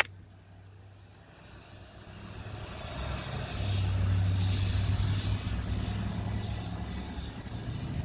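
Blizzard wind gusting: a low rumble that swells over the first few seconds, is loudest around the middle, then eases a little without dying away.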